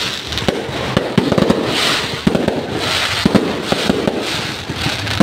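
Fireworks display: many aerial bursts going off in quick succession, a dense run of sharp bangs and pops with recurring stretches of crackle.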